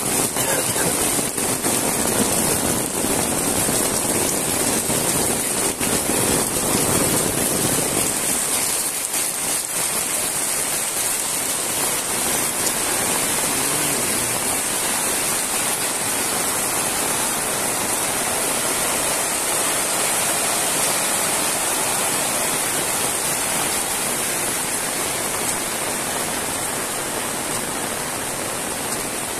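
Heavy rain falling steadily, drops splashing on concrete and puddles. The sound is fuller for the first eight seconds or so, then thins slightly to an even hiss.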